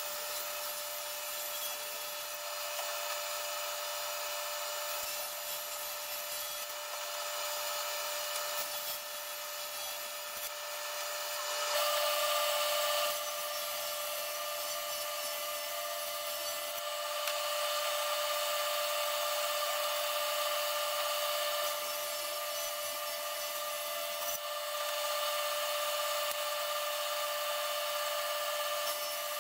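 SawStop 1.75 hp cabinet table saw running with a steady whine while its blade rips through oak plywood sheets. It gets briefly louder about twelve seconds in.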